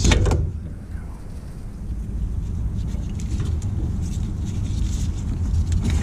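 Gloved hands working a plastic wiring-harness connector in a truck's engine bay until it comes apart: a sharp click right at the start and a few light clicks later, over a steady low rumble.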